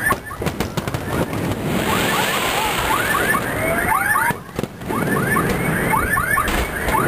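A car alarm sounding, cycling through quick rising whoops repeated in short groups, over steady background noise.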